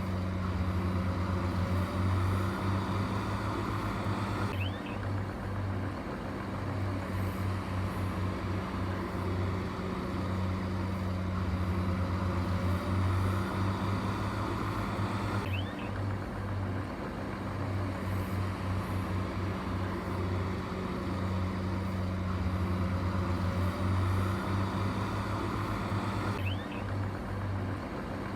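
Heavy diesel engine of earthmoving machinery running steadily. Its tone shifts slightly about every eleven seconds, each time with a faint short squeak.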